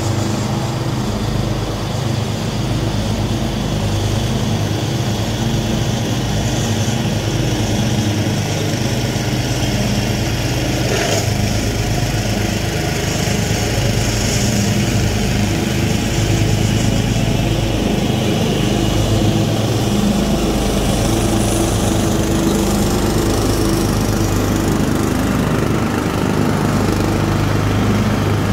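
Riding mower and tow-behind rotary mower, both small engines running steadily under load as they cut long grass.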